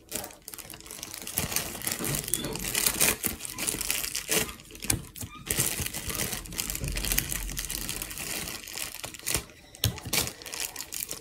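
Clear plastic bag crinkling and crackling in irregular rustles as it is squeezed and handled with homemade slime inside.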